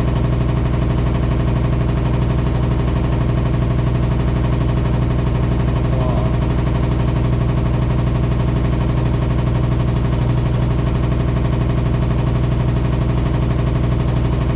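Hitachi SF-150TCV 15 kg top-load washing machine spinning, a loud steady drone with a strong low hum. The owner finds the spin abnormally loud for a brand-new machine, with the tub wobbling side to side; he checked the levelling and found it fine, so he does not know the cause.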